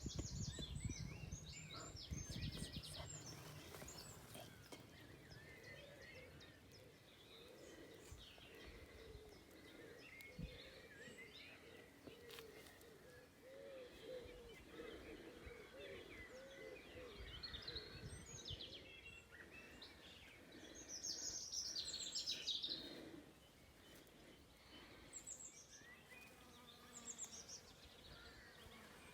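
Faint birdsong: several birds chirping and trilling in short, high phrases over a low outdoor background, with a louder run of high chirps about three-quarters of the way through.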